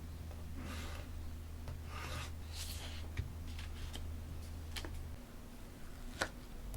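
Paper being handled for journaling: soft rustling and sliding of sheets, with a few light ticks and then two sharp little taps, the second near the end. A faint low hum underneath stops about five seconds in.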